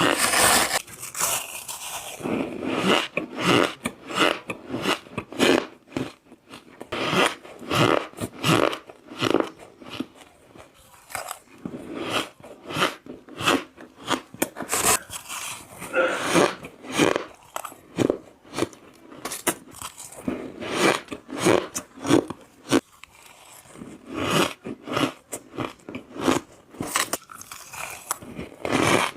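Close-miked bites into ice, with dense runs of sharp, irregular crunches as the ice cracks between the teeth.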